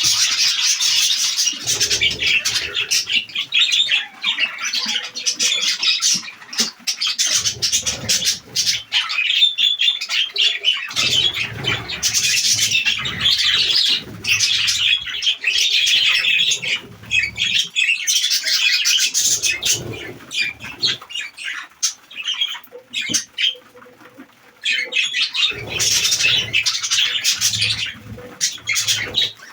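Pet parrots chattering and squawking continuously in fast high calls, with repeated short bouts of wing flapping every few seconds.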